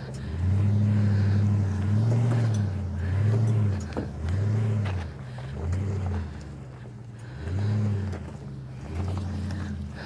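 A vehicle's engine labouring up a steep, rough dirt slope, surging and easing again and again as the throttle is worked.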